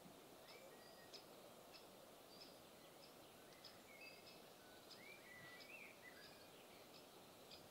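Faint birdsong: small birds chirping again and again, short high notes and little rising and falling whistles, over a quiet background hush.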